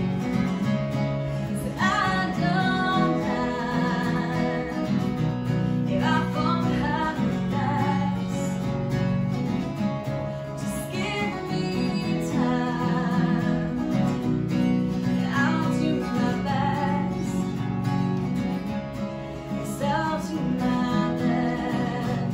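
A woman singing, her voice wavering with vibrato, over a strummed acoustic guitar. The voice comes in phrases every four or five seconds, and the guitar carries on between them.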